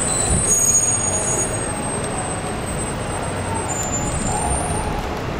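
Elevated NYC subway train approaching on curved track: a steady rumble with thin, high wheel squeals that come and go, near the start and again about four seconds in.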